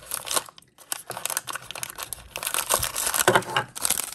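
Crinkly pink printed wrapper on a blind-box mini figure being handled and torn open, an irregular crinkling and crackling. The sound pauses briefly just under a second in, then grows busier through the second half.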